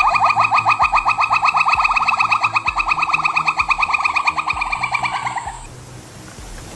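A monkey giving a long, rapid trill: short rising notes repeated about ten times a second for about five and a half seconds, then fading away.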